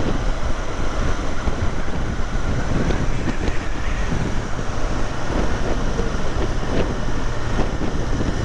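Wind rushing over the microphone on a Royal Enfield Continental GT 650 riding at speed, with the bike's parallel-twin engine running steadily underneath.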